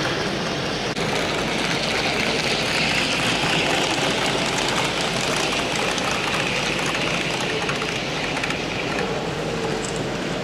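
Model trains running on a layout: a steady whir of small electric motors and wheels on track, with a brief dropout about a second in.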